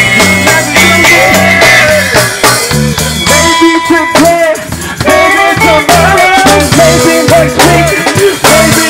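A man singing into a microphone over rhythm-and-blues band music with bass and drums, played loud through a PA speaker.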